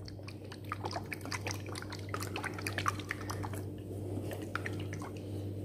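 Herbal oil mixture sloshing in a small brown glass bottle as it is swirled by hand, heard as a quick, irregular patter of small liquid clicks.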